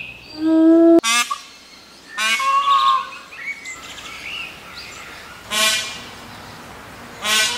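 A wolf's howl, a held steady note, ends about a second in. Then a peacock (Indian peafowl) gives about four loud, harsh, nasal calls spread through the rest.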